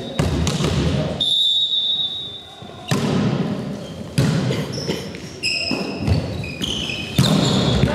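Volleyball rally in a sports hall: the ball is struck and thuds several times, each hit echoing, with short high squeaks of shoes on the hall floor in the second half.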